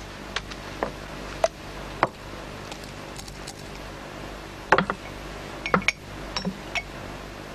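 Light clicks and clinks of small objects being handled on a table, with single taps in the first couple of seconds and quick little clusters later on, over a low steady hum.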